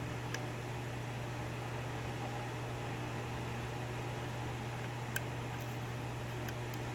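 Steady low hum and hiss, with a few faint sharp clicks from a lock pick working the pins of a Euro profile cylinder: one near the start and a couple late on.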